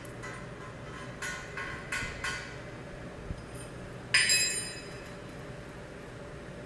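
Metal clinking: four light taps, then a louder ringing clang about four seconds in that dies away within half a second.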